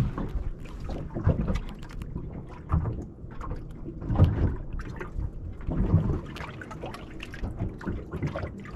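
Small waves slapping and splashing against the hull of a small boat, in irregular surges every second or two.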